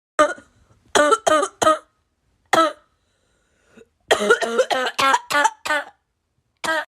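A person coughing in short separate bursts: single coughs and a quick triple early on, then a rapid run of coughs about four seconds in, and one last cough near the end.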